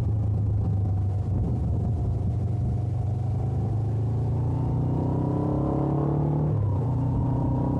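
Suzuki GS500F's air-cooled parallel-twin engine through its stock exhaust, heard from the rider's seat: the engine note sags slightly for the first few seconds, then rises as the bike accelerates from about four seconds in, with a brief break near the end where the pitch drops back and climbs again.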